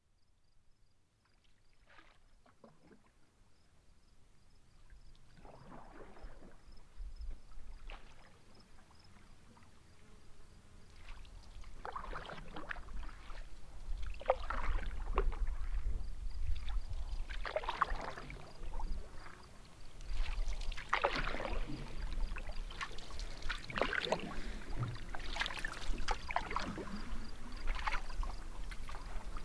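Canoe being paddled: a splash and swish of the paddle through the water about every three seconds, over a low rumble. The sound fades in from silence over the first several seconds.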